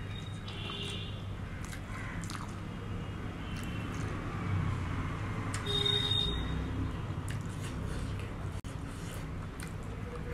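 Close-up mouth sounds of a person eating rice with potato-and-cheese curry by hand: chewing with small wet clicks and smacks.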